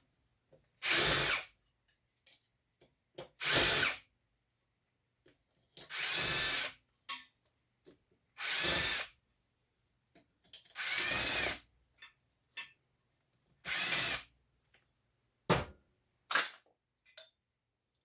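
Power drill running in six short bursts, roughly every two and a half seconds, backing out the screws that hold a ceiling fan's aluminum blade brackets. Small clicks and clinks come between the bursts.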